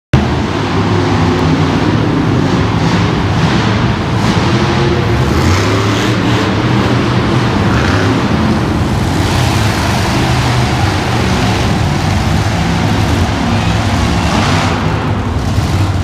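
Monster truck engines running loud and steady in an indoor arena.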